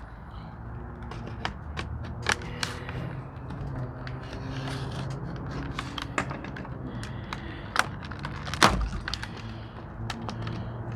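Irregular clicks and light clatter of hard plastic and metal pieces being handled: a multi-tool kit's case and hex bit holder. The loudest knock comes about two-thirds of the way through, over a steady low hum.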